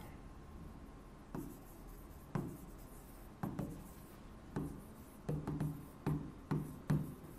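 Stylus tapping and sliding on the glass of an interactive touchscreen board while handwriting words: a string of short, soft knocks, about one a second at first and coming quicker near the end.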